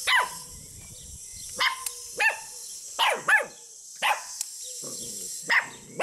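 A puppy barking in high, short yips, about seven barks each sliding down in pitch, spaced unevenly with a pair close together near the middle.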